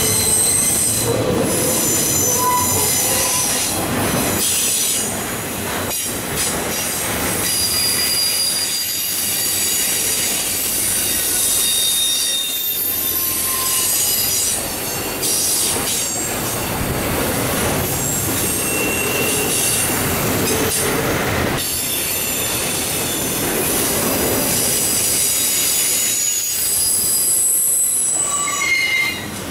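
Cars of a Norfolk Southern double-stack intermodal freight train rolling past: a steady loud rumble of steel wheels on the rails, with thin high-pitched wheel squeals that come and go.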